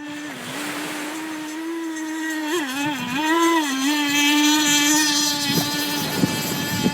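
Radio-controlled pontoon boat's motor running at speed with a steady high whine. The pitch dips briefly twice near the middle, and a hiss builds as it gets louder from about four seconds in.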